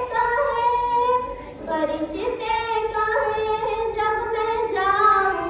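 A girl sings a naat, a devotional poem in praise of the Prophet, solo and unaccompanied, in long drawn-out notes that glide between pitches, with a short break for breath about a second and a half in.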